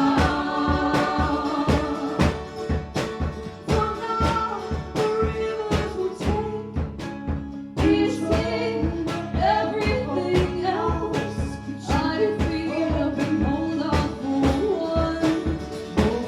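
Live acoustic folk-pop song: steadily strummed acoustic guitar with female voices singing in harmony.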